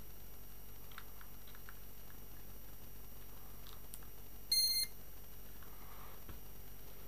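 A single short electronic beep about four and a half seconds in, over faint steady hiss, with a few faint light clicks about a second in.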